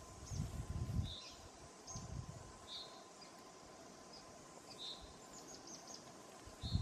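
Faint bird chirps in forest, short high notes every second or two, over low rustling bursts of footsteps through leaf litter and dead branches.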